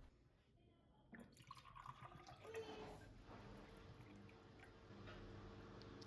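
Near silence: faint room tone with a steady low hum, and a few faint light water sounds and clicks about a second in.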